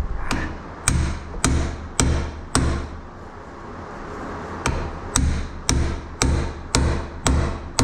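Hand hammer striking a steel pickle fork wedged into the truck's pitman arm joint, about two sharp metallic blows a second with a pause of about two seconds in the middle, to break the tapered steering joint loose.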